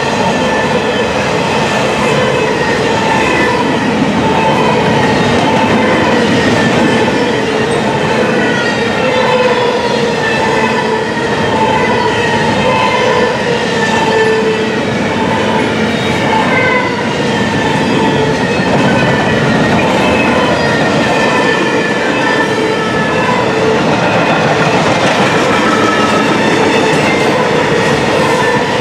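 Double-stack intermodal freight cars rolling past at speed: a steady, loud rumble and clatter of steel wheels on rail, with a wavering, high squeal from the wheels running through it.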